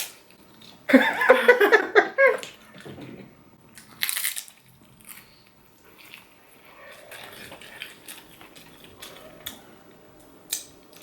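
A short vocal sound for about a second near the start, then a brief crackly burst about four seconds in and soft scattered clicks of eating at a table.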